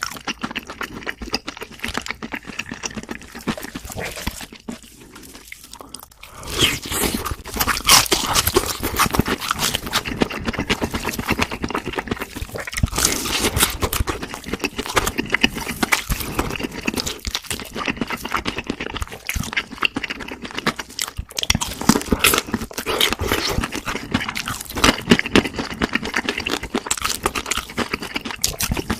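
Close-miked eating of crispy fried food: dense crunching and wet chewing with mouth noises, quieter for the first few seconds with a brief lull, then louder and busier from about six and a half seconds in.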